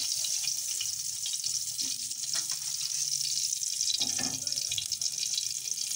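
An egg frying in hot oil in a karahi, a steady high sizzle.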